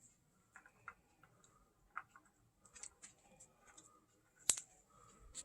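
Faint clicks and light knocks of small chainsaw parts being handled, with one sharper click about four and a half seconds in.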